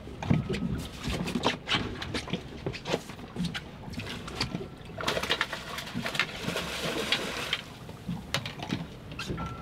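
Irregular knocks and clicks of fishing gear being handled on a boat's deck as a hooked fish is fought and a long-handled landing net is readied, with a rushing, splashing water noise for a couple of seconds about five seconds in.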